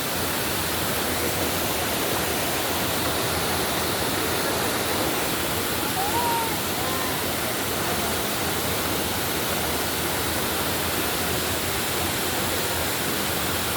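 Steady, unbroken rushing of a waterfall's falling water.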